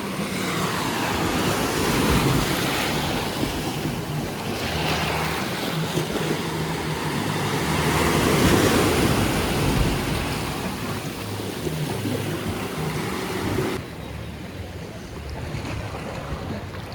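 Waves and moving water with wind on the microphone, a loud, even rush. About 14 s in it changes abruptly and becomes quieter in the upper range.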